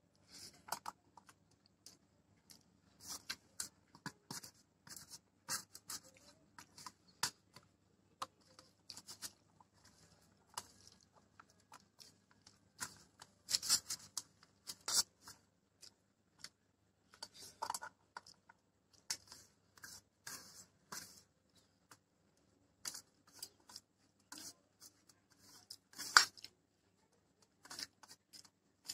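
Eating rice mixed with dal by hand from a stainless steel plate: fingers squishing and mixing the rice, scraping across the plate, and close chewing, heard as short scattered clicks, rubs and wet smacks, a few of them louder.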